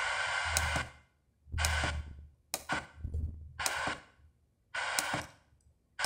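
JR8 1010BT car radio's FM tuner seeking between stations: about five short bursts of static hiss through its speaker, each starting with a click and cut off by muting in between, as it steps through the band without locking onto a station.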